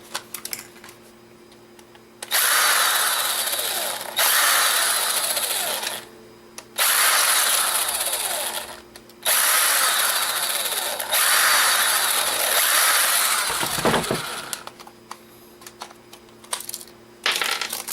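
Small electric screwdriver running in five runs of one to two seconds each, backing out tiny screws, with short pauses between runs.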